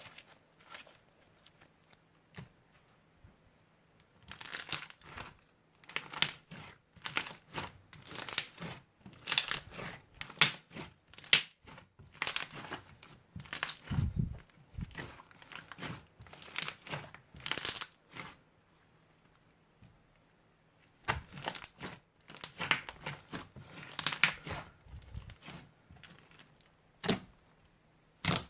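Crunchy slime being squeezed and pressed by hand, giving irregular bursts of crackling and crinkling. It starts a few seconds in, pauses briefly past the middle, then resumes.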